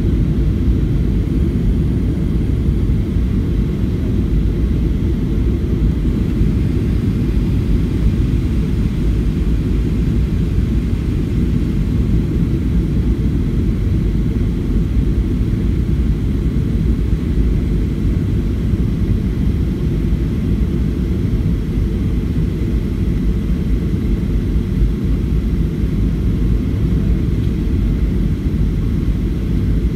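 Steady cabin rumble inside a Southwest Airlines Boeing 737 descending on approach to land: engine and airflow noise heard through the fuselage, deep and even, with no change in level.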